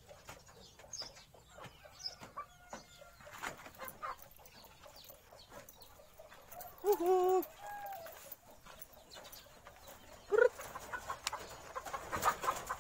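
A chicken clucking: a drawn-out call about seven seconds in, another right after it, and a short one a few seconds later, between light clicks and scuffs.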